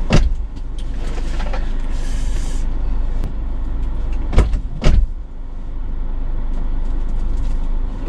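Steady low rumble of a car heard from inside the cabin, with a loud thump right at the start and two more about half a second apart in the middle as a passenger climbs into the back seat and the car is shut.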